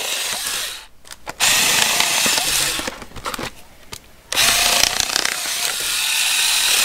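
Hard plastic clamshell packaging of a voltage tester being pried and torn open, with crackling and scraping in three long stretches and short pauses between them.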